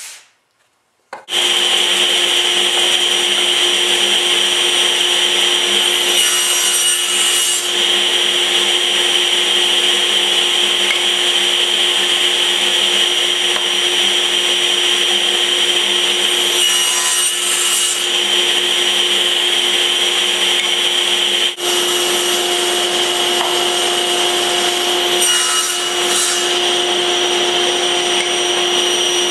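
Table saw starting abruptly about a second in and running steadily. The blade cuts through wood three times briefly, about six, seventeen and twenty-five seconds in.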